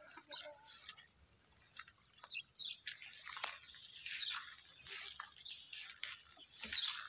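Steady, high-pitched chorus of crickets and other insects, with scattered short falling chirps over it.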